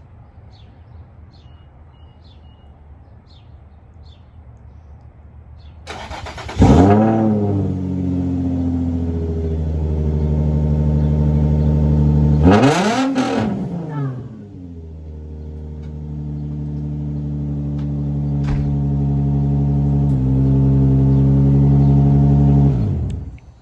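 Infiniti G35 coupe's V6 started with its newly replaced starter: a brief crank, then the engine catches and flares up before settling to idle. About six seconds later it is revved once, rising and falling, then idles on until it is switched off near the end.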